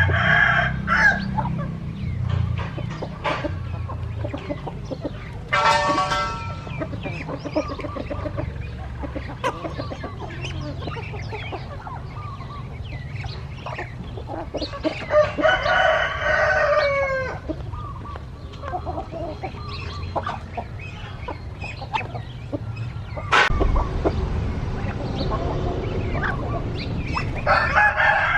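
Roosters crowing several times, each crow lasting a second or two: at the start, about six seconds in, a longer one in the middle that falls at its end, and another near the end. Hens cluck between the crows, over a steady low rumble.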